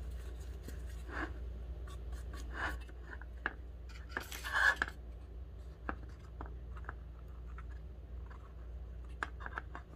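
Soft scratchy strokes of a paintbrush spreading glue over paper, then the paper being handled and pressed onto a small wooden sled, with small clicks and taps. A louder scrape comes a little past four seconds in, over a low steady hum.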